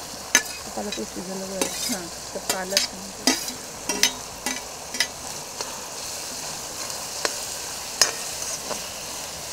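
Chopped tomatoes, spring onion and spinach sizzling in hot oil in a metal kadai, a steady hiss. A metal spoon stirring the vegetables clicks and scrapes against the pan, with one sharper clink about eight seconds in.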